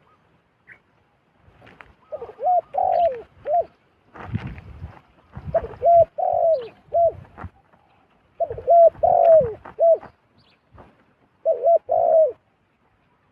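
Zebra dove calling: four phrases of short, quick cooing notes that rise and fall, a few seconds apart. A brief rustle sounds between the first and second phrases.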